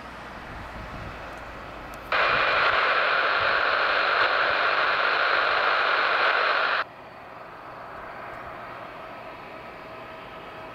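Air-band radio receiver hiss: a burst of static that switches on abruptly about two seconds in, holds steady for about five seconds and cuts off suddenly, as the squelch opens on an empty transmission. Under it is a low steady background rumble.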